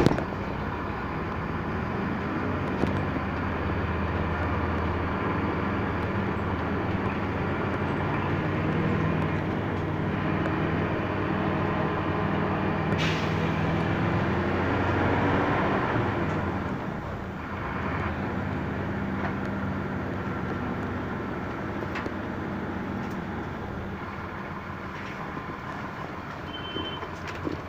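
Engine drone and road noise heard from inside a moving vehicle, the engine note shifting as it speeds up and slows in traffic. A short high electronic beep sounds near the end.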